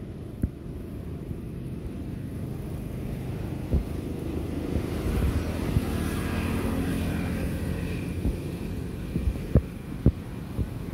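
Steady low outdoor rumble that swells through the middle with a faint steady hum, like a distant engine passing. A few sharp clicks or knocks sound near the start and several more near the end.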